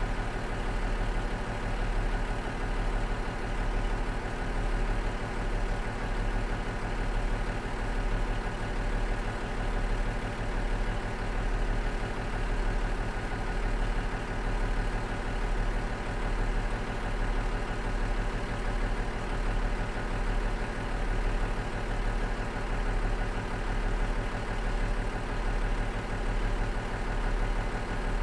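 Cummins DMF14HZ horizontal six-cylinder turbo diesel of a KiHa 47 railcar idling steadily: an even, low running note with a slow, regular swell and fade in loudness.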